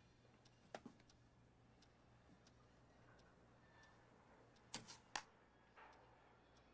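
Near silence with faint ticking and a few sharp clicks; the loudest, a close pair, come about five seconds in.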